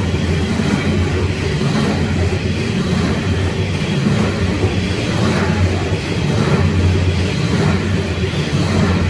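A long coal train's hopper wagons rolling past close by on steel rails, a steady heavy rumble of wheels and wagons.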